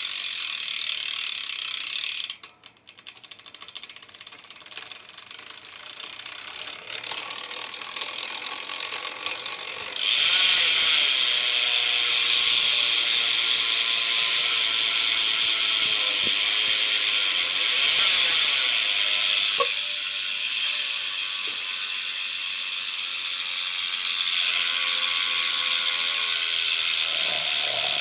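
Ezra Opus BMX rear hub freewheeling, its pawls clicking so fast they merge into a loud buzz. The sound drops away about two seconds in, builds up gradually, then jumps sharply louder about ten seconds in and stays loud.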